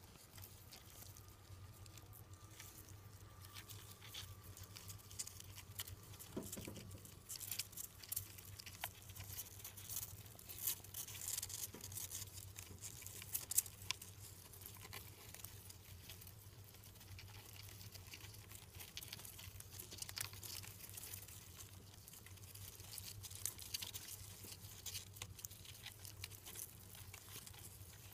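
Faint rustling and scratching of hamsters moving in wood-shaving bedding and tissue paper, with many small scattered ticks, over a low steady hum.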